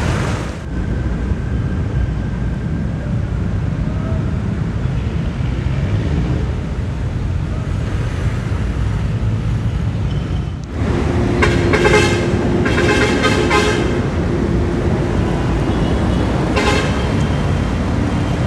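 Urban traffic noise with a steady low rumble that changes abruptly twice where the clips are cut. Starting around the middle, a vehicle horn sounds in a run of short repeated toots for about three seconds, and one more brief toot comes near the end.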